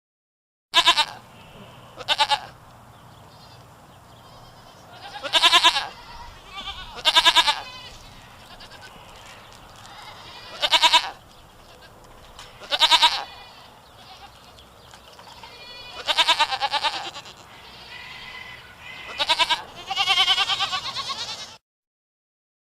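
Goat bleating: about nine loud, wavering calls a second to a few seconds apart, with fainter bleats between them. The last call is the longest and ends abruptly.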